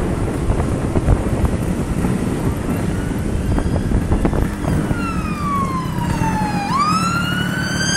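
An emergency vehicle's siren wailing, coming in about halfway and growing louder, its pitch sweeping down and then climbing again near the end. Underneath runs the steady sound of the Vespa scooter's engine and wind on the microphone.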